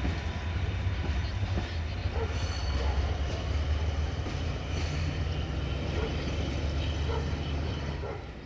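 CFR LDH diesel-hydraulic shunting locomotive 82-0562-7 running light on the track, its diesel engine a steady low drone that falls away near the end.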